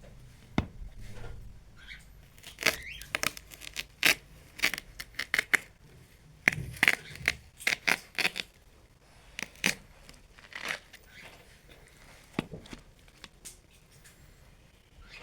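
Ripe watermelon making a run of sharp, irregular cracking and crackling sounds, some single and some in quick clusters.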